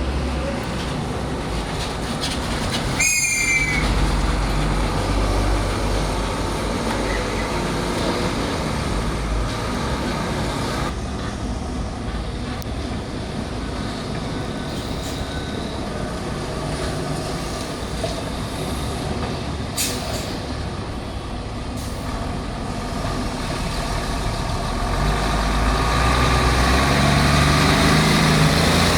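Hino 500 heavy truck's diesel engine running with a steady low rumble, growing louder over the last few seconds. A brief high squeal sounds about three seconds in.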